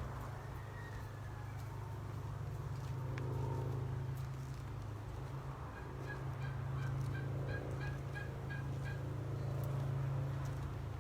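A fowl's rapid run of short repeated calls, about five a second, lasting some three seconds past the middle, over a steady low hum.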